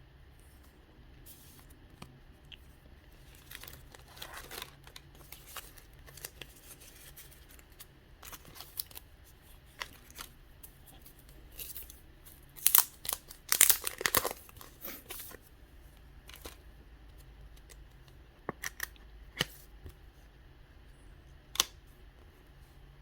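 Packaging being crinkled and torn by hand, in scattered bursts that are loudest about halfway through, with a few sharp clicks near the end.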